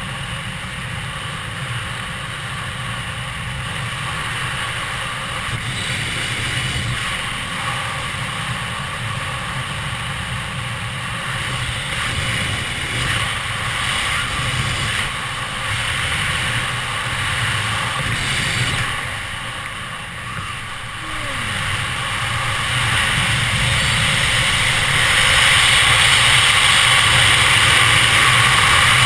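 Wind rushing over a helmet camera's microphone during a parachute descent: a steady rushing noise that grows louder near the end.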